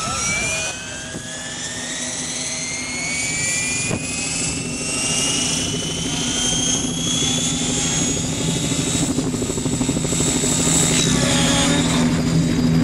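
Align T-REX 700E electric RC helicopter spooling up and taking off: a high whine rises steadily in pitch over about ten seconds as the rotor comes up to speed, then levels off, over a steady lower hum.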